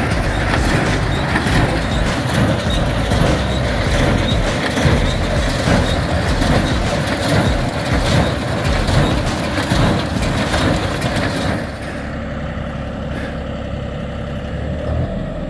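Tractor and hay baler working a windrow, running loudly with a constant churning mechanical noise. About twelve seconds in, the high-pitched part fades and a steadier, lower running sound is left.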